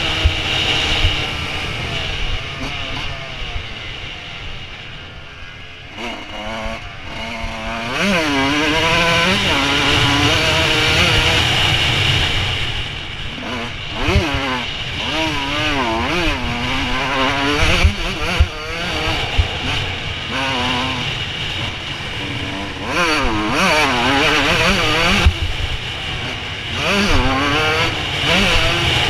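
Suzuki RM125 125cc two-stroke motocross engine revving up and falling off again and again as the bike is ridden round the track, with wind rushing past and a few sharp knocks over the bumps. It goes quieter off the throttle a few seconds in.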